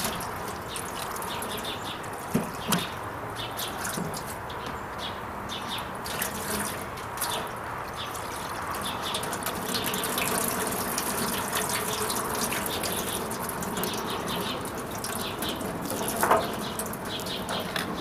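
Bleach-and-water solution pouring from a plastic gallon jug over a wooden birdhouse and splashing down into a galvanized metal washtub, a steady run of splashing. A few short knocks sound a couple of seconds in and again near the end.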